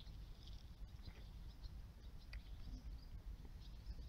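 Faint outdoor ambience: scattered short high chirps, likely birds, over a steady low rumble.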